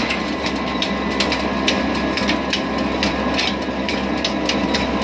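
Flour mill running under the drive of an old diesel engine through a flat belt, pulleys and line shaft: a steady mechanical clatter with sharp clicks about twice a second.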